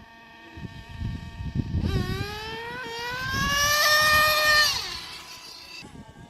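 Remote-control drag cars making a pass: a steady high whine, then from about two seconds in a motor note rising in pitch for about three seconds as the cars accelerate, fading out near the end.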